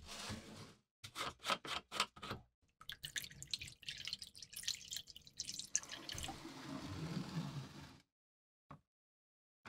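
Liquid poured into a narrow tray over a rusty knife blade: a few separate drips and splashes at first, then a steady splashing, trickling pour for about five seconds that stops abruptly two seconds before the end.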